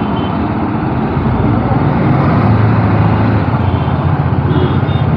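BMW G 310 R motorcycle's single-cylinder engine running at low speed in traffic, picking up a little about a second and a half in, with other street traffic around.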